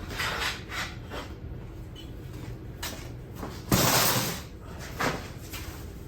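Support posts of a folding waterfowl layout blind being slid into their sleeves and the blind's fabric being handled: rustling and light knocks, with one loud scraping swish a little under four seconds in and a sharper knock about a second later.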